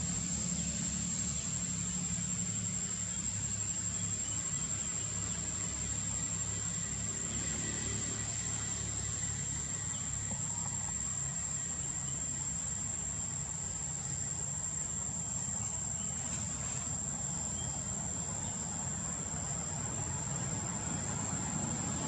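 Steady, high-pitched insect drone that holds one unbroken tone, over a low steady rumble.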